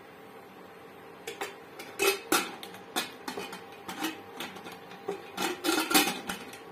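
Pressure cooker lid clanking and clicking against the metal pot as it is fitted and closed, in an irregular string of knocks that starts about a second in and is loudest about two seconds in and again near the end.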